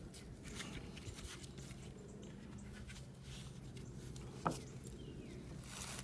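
Faint handling and rubbing noises with a single sharp click about four and a half seconds in, over a low steady hum.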